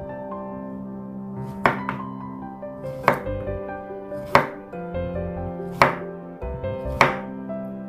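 Kitchen knife slicing a Korean zucchini into rounds on a bamboo cutting board: five sharp knocks of the blade through the zucchini onto the board, a little more than a second apart, over soft background music.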